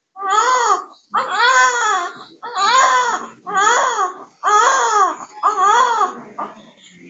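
Newborn baby crying in a run of about six loud wails, roughly one a second, each rising and then falling in pitch, with a weaker cry near the end.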